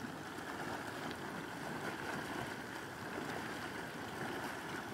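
Boiling sulfuric mud pot bubbling away steadily, with volcanic gases welling up through the hot mud.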